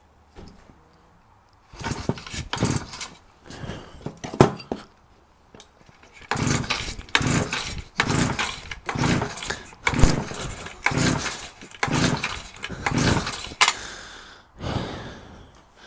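Stihl TS350 cut-off saw's two-stroke engine cranked by its recoil starter cord during a compression test, with the spark plug out, so it turns over without firing. Two separate pulls come first, then about a dozen quick, even strokes about twice a second from about six seconds in.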